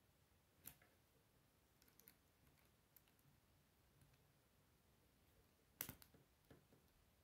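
Plastic K'Nex rods and connectors clicking as they are snapped together by hand: a few scattered soft clicks, with a louder cluster of clicks near the end.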